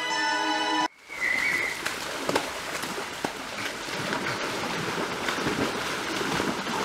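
Background music cuts off abruptly about a second in, followed by water splashing and sloshing as people wade and splash through a shallow stream, with a short high call just after the music stops.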